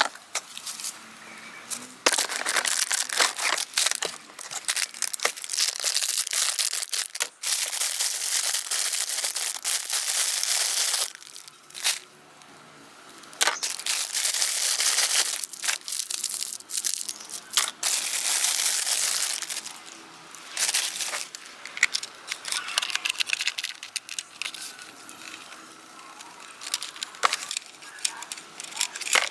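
Crinkling and tearing of plastic packaging, in long noisy stretches broken by sharp clicks, with a short lull about eleven seconds in.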